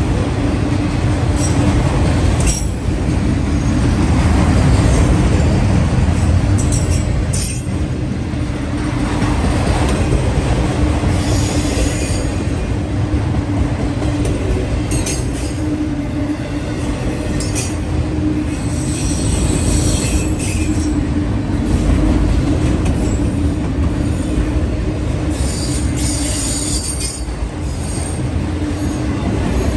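Autorack freight cars of a passing freight train rolling by close at hand: a loud steady rumble of steel wheels on rail, with short high-pitched wheel squeals every few seconds.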